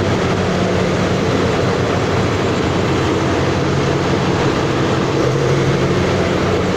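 Steady running noise of a moving passenger train heard from inside an air-conditioned sleeper carriage: a continuous rumble with a low, even hum underneath.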